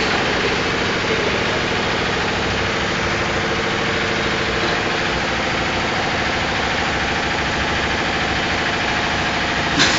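A motor-driven machine running steadily, giving an even mechanical hum with a low drone and a few steady tones underneath.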